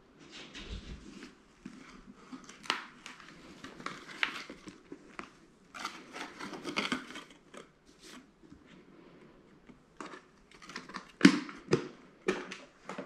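Handling noise from a full-face motorcycle helmet being turned over in the hands: irregular rustling and crinkling of the liner and padding, with a few sharp taps and knocks on the shell. The loudest are two knocks close together near the end.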